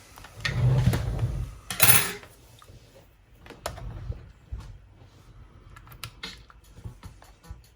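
Handling noise as headphones and a small MiniDisc player are picked up and handled. A low rustling bump comes first, then a sharp clatter about two seconds in, then scattered small clicks and taps.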